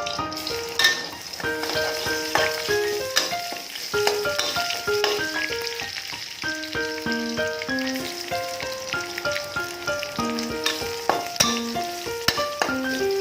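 Stir-fry sizzling in a hot pan, with a utensil clicking and scraping as the food is stirred. A background music melody of short plucked or keyboard notes plays over it throughout.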